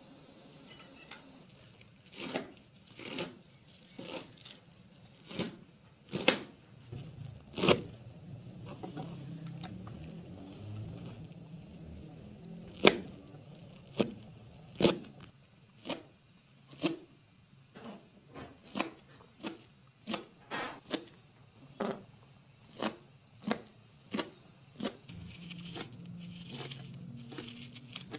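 Kitchen knife chopping fresh herbs and green onions on a plastic cutting board: single sharp strokes at uneven intervals, roughly one a second. Near the end the strokes give way to a softer rustle as an onion is peeled with a knife.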